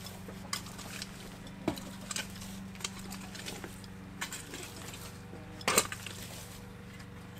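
Metal garden rake scraping and knocking through soil, stones and debris in irregular strokes, with sharper clinks now and then, the loudest about six seconds in. A steady low hum runs underneath.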